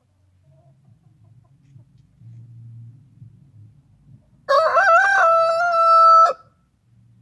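A rooster crowing once, a single cock-a-doodle-doo lasting nearly two seconds. It starts about four and a half seconds in, wavers at first, then holds one steady note before cutting off sharply.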